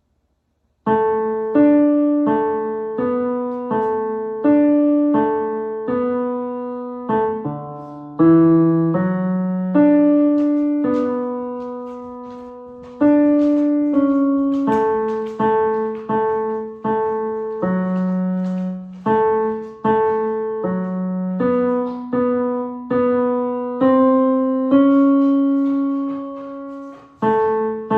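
Piano playing a tenor vocal part as a melody line, one struck note after another, starting about a second in.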